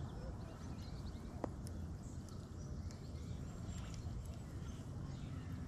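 Faint outdoor background: a steady low rumble with scattered faint high chirps, and one sharp click about a second and a half in.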